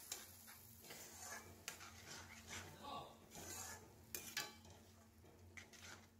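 Faint scrapes and clinks of a metal spatula against a metal kadhai as semolina and water are stirred together for upma, with the strokes spread unevenly through the stirring over a low steady hum.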